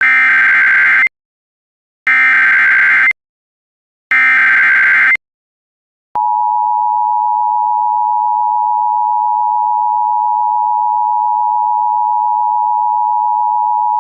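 Emergency Alert System SAME header: three one-second bursts of screeching data tones, a second apart, followed about six seconds in by the steady two-tone EAS attention signal. Together they mark the start of a new emergency alert broadcast.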